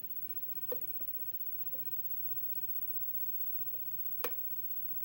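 Lock pick probing the pin stacks of a Sargent interchangeable-core lock held under tension, feeling for the binding pin: faint scattered clicks of the pick against the pins, with two sharper clicks, one about a second in and one near the end.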